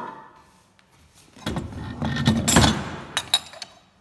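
A metal drill-press vice scraping and shuffling on a wooden workbench for about a second and a half, followed by two sharp knocks as it is set in place.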